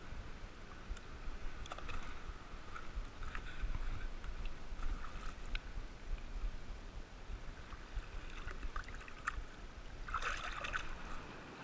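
Seawater splashing as hands lower a caught sea bass into the shallows and let it go, loudest near the end. Before that, small scattered splashes and handling noises over a low rumble.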